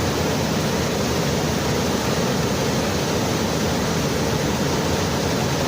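Waterfall water rushing steadily, an even, unbroken noise.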